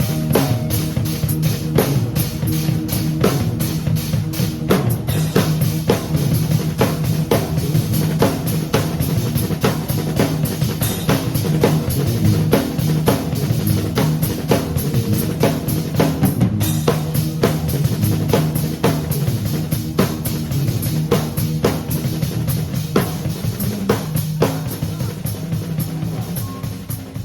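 Rock trio playing an instrumental song: drum kit with fast, busy kick, snare and rimshot hits over sustained bass guitar and electric guitar notes.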